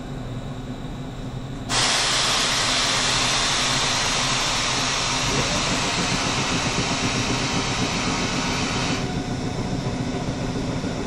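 Stopped electric train with a steady low hum. About two seconds in, a loud hiss of compressed air starts suddenly, runs about seven seconds, then cuts off abruptly.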